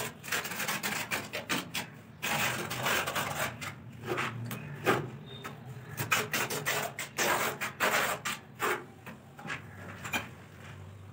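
A trowel scraping and slapping cement mortar across the ribbed back of a ceramic wall tile: a run of irregular, rasping strokes that thin out over the last couple of seconds.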